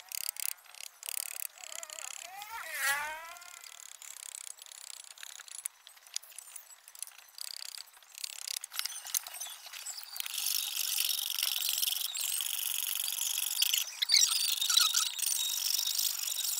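A steel blade scraping and shaving a wooden handle by hand, with scattered small clicks and, from about ten seconds in, a steady rasping scrape. A brief whine falling in pitch passes about three seconds in.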